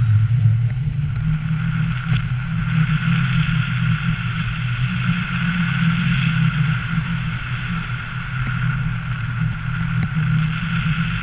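Steady rush of airflow over the camera microphone of a tandem paraglider in flight, a loud even noise that rises and falls slightly.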